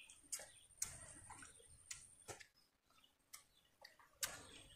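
Near silence broken by faint, irregular clicks of someone eating, about seven in all.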